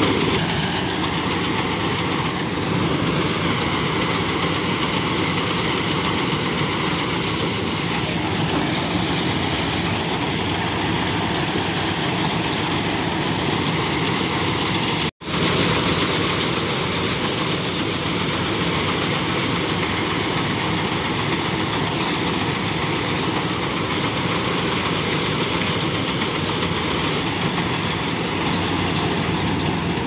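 Kuldeep 932 combine harvester's diesel engine running steadily, a dense, even mechanical noise. It cuts out for an instant about halfway through.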